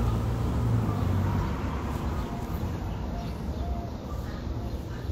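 Outdoor ambience: a steady low rumble, heaviest in the first second, with a few short faint chirps scattered through.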